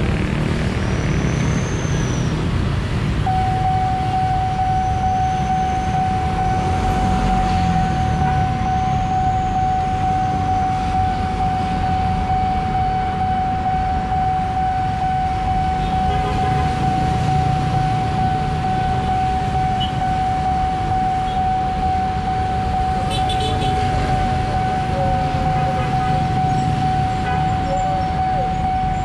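Railway level-crossing warning signal sounding one unbroken high tone, starting about three seconds in, as the crossing barrier comes down ahead of an approaching train. Road traffic noise runs underneath.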